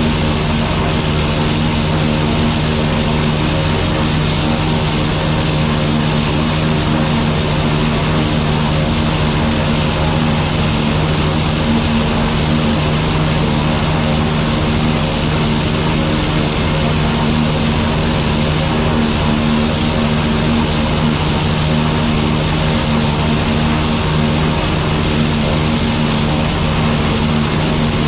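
Diesel engine of heavy farm machinery running steadily at constant speed, a loud continuous sound with no change in pitch.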